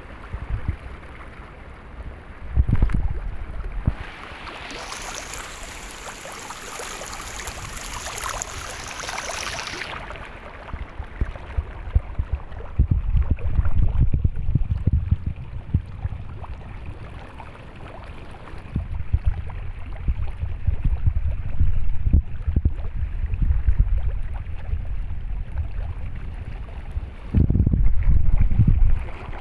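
Water flowing steadily, with gusts of wind buffeting the microphone as low rumbles. A louder, brighter rushing hiss runs from about five to ten seconds in.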